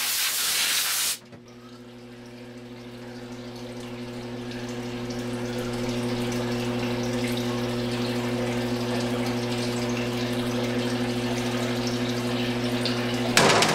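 Steady machine hum from the CNC milling machine standing by after the cut. A loud hiss fills about the first second, and a short noisy burst comes near the end.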